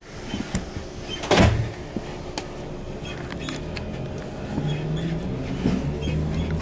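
Interior of a Class 455 electric multiple unit pulling out of a station, with rattles and clicks from the carriage and a short loud burst of noise about a second in. From the middle on, a low traction-motor hum comes in and steps up in pitch as the train gathers speed.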